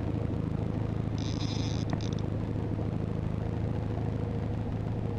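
Boat motor running steadily at trolling speed, a low even hum. About a second in, a high buzz sounds for about a second.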